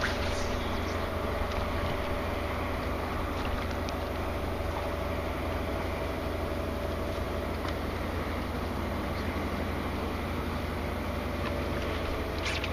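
Steady low rumble of wind on the microphone, with a faint electric hum from a bass boat's bow-mounted trolling motor that weakens about seven seconds in.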